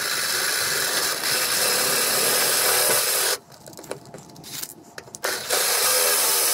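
DeWalt 20V cordless drill running a twist bit into the metal table saw top, enlarging a pilot hole for a 1/2-13 tap. It drills steadily, stops for about two seconds a little past halfway, then starts again.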